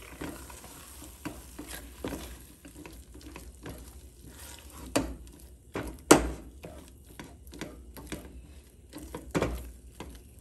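Silicone spatula stirring and folding a thick, sticky halwa paste of cornflour, sugar syrup and ghee in a stainless steel pot. Irregular squelches, scrapes and knocks against the pot, the loudest about six seconds in.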